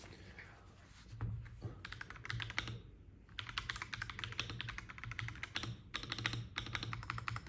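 Akko Dracula Castle 5075 mechanical keyboard being typed on in quick runs of keystrokes, with a short pause about three seconds in.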